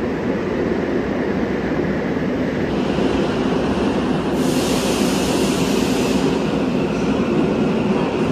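Subway train pulling out of an underground station behind platform screen doors, with steady running noise. Partway through, a burst of hissing lasts about two seconds.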